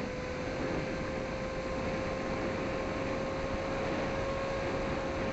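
Small FPV plane's 2306 1600 KV brushless motor and propeller running at high throttle: a steady whine over rushing wind noise.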